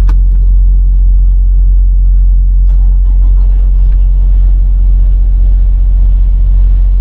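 Semi-truck's diesel engine running, heard inside the cab as a loud, steady low drone. A sharp click sounds right at the start.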